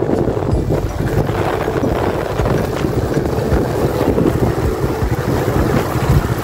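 Motorcycle engine running while riding, heavily overlaid by wind buffeting on the microphone.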